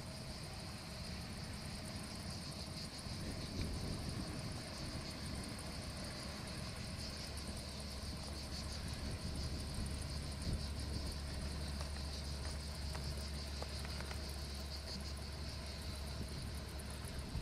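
Insects trilling steadily in a continuous high-pitched background chorus, over a low steady rumble.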